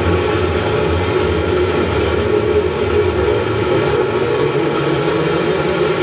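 Live electronic noise-drone music: a dense, steady wall of noise over a low rumble and a held hum, with no beat or pauses.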